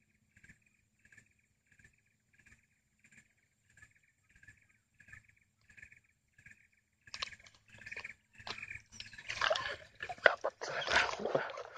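A faint call repeats about every half second. About seven seconds in, loud irregular knocks and rustling take over as the fishing rod and reel are grabbed and swung.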